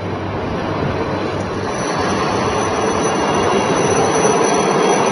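HAL Dhruv military helicopters flying low overhead: dense rotor and turbine engine noise that grows louder as one passes close, with a high steady whine joining about a second and a half in.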